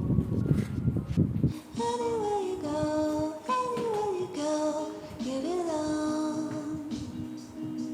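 Background music with a woman's singing voice carrying a melody that slides between notes. It starts about a second and a half in, after a short busy low-pitched passage.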